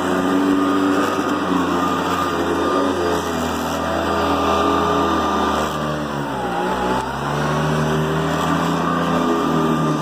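Hoover Decade 800 upright vacuum cleaner running steadily on its high speed setting. About six and a half seconds in, its pitch dips briefly and recovers.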